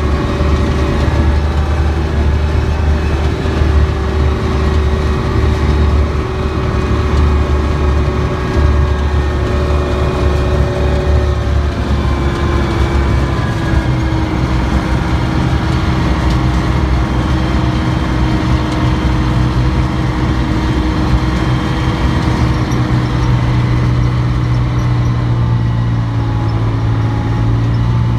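Armoured military vehicle driving across grass: its engine and drivetrain give a loud, continuous drone and whine, with the pitch easing down a little about halfway through.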